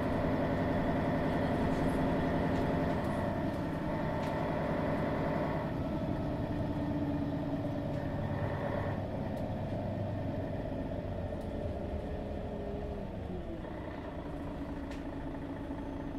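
Mercedes-Benz Citaro G articulated bus's Daimler OM 457 hLA diesel engine running steadily, its note easing off and dropping a little after the middle.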